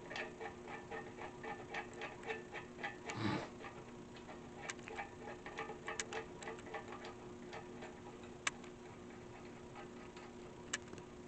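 Rapid, irregular light clicking of a screwdriver driving screws by hand into the metal futon frame's center brace, thinning out after a few seconds, with two sharper metallic clicks near the end. A faint steady hum runs underneath.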